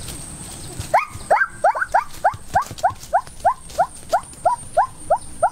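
An animal calling in a fast, even series of short, rising yelping notes, about three a second, starting about a second in.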